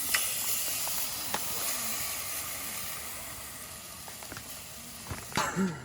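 A loud, steady hiss that starts suddenly, fades a little, and cuts off about five seconds in.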